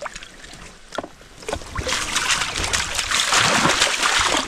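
Water splashing hard at the surface, starting about two seconds in and cutting off near the end: a hooked sockeye salmon thrashing.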